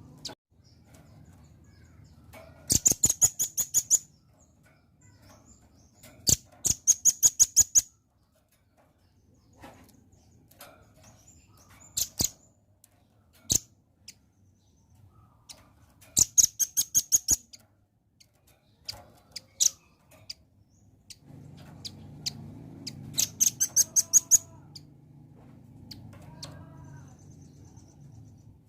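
Velvet-fronted nuthatch calling: four rapid bursts of sharp, high chips, each about a second long, with single chips in between.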